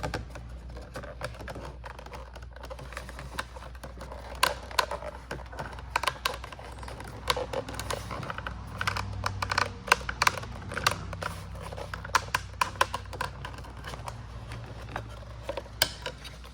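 Irregular light clicks and taps of hand tools and metal parts as a bracket inside a car door is worked loose, over a low steady hum.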